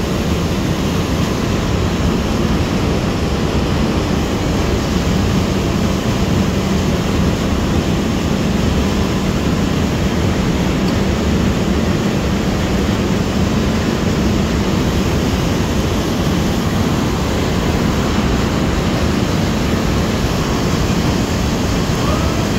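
Steady, loud machinery noise of an industrial overhead grab crane lowering its clamshell grab bucket, with a low hum that stops about two-thirds of the way through.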